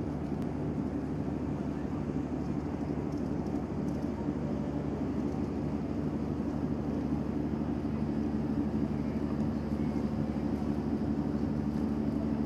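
Engines of a large passenger ship pulling away from the quay: a steady low drone with a hum, growing slightly louder in the second half.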